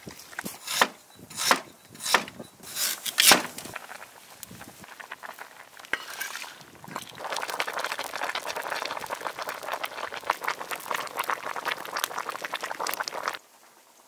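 A handful of sharp knocks, about one every half second, in the first few seconds. Then a pot of fish stew bubbling hard at the boil over a wood fire, a dense steady crackling and bubbling that cuts off abruptly near the end.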